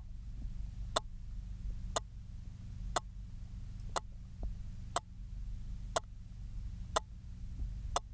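Cheap quartz analog wristwatch ticking about once a second, its sharp clicks picked up by a contact microphone. A steady low hum under the ticks also comes from the watch.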